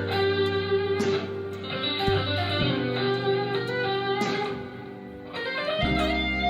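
Harley Benton Fusion III HSS electric guitar played with overdrive: sustained notes and chords that change about once a second, then glide up into a long held note near the end.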